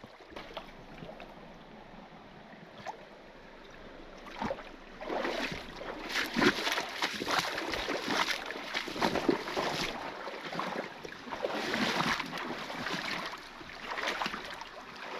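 Shallow mountain stream running over rocks. It is quiet for the first few seconds, then louder irregular splashing and rustling from about four seconds in.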